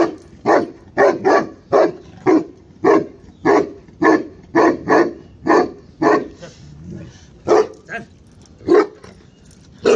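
A large Gaddi dog, the Himalayan sheepdog breed, barking in a long run of loud barks, about two a second. After about six seconds the barks thin out to a few widely spaced ones.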